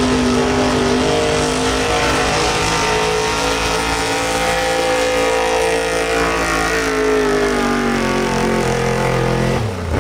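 Small-block gas V8 of a Ford pickup pulling truck running at full throttle as it drags a weight sled. The engine note holds high and steady, drops in pitch over the last few seconds as the truck loses speed under the load, then falls away just before the end as the pull stops.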